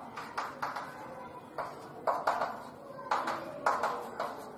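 Chalk tapping and scratching on a chalkboard while numbers are written, in a string of short sharp clicks grouped in small clusters.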